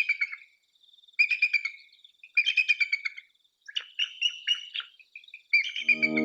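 Bald eagle calling: five bursts of quick, high chattering whistles, each a run of several notes, about a second or so apart. Music with guitar enters near the end.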